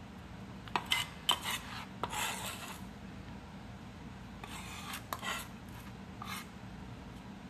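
A chef's knife blade scraping across a plastic cutting board, pushing chopped onion into a glass bowl. There are several short scrapes with a few sharp clicks, a pause, then a few more scrapes.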